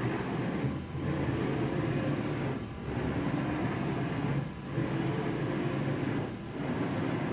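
JMC iHSV57 servo motor and ball screw driving a CNC axis back and forth, running steadily with a short drop each time it reverses, about every two seconds. The servo is on its stock, untuned settings.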